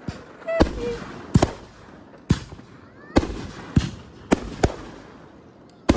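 Consumer fireworks going off in an uneven run of sharp bangs, about eight of them in quick succession.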